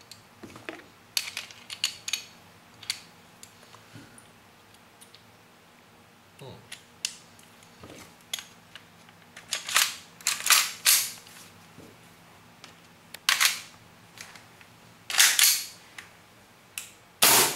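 Parts of a WE Glock 19 gas blowback airsoft pistol being handled and fitted together, with small metal and plastic clicks as a Maple Leaf inner barrel and hop-up set goes into the slide. Sharper clacks follow in the middle and again later, and the pistol's first gas blowback shot comes right at the end.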